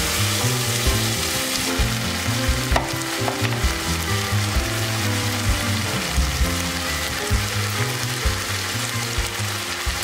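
Chopped onion, ginger and garlic sizzling in hot oil in a saucepan, stirred with a wooden spoon, with broccoli florets dropped in partway through and a few light knocks.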